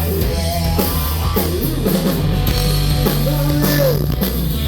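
Rock band playing an instrumental passage between sung lines: electric guitar with bending notes over bass and a drum kit.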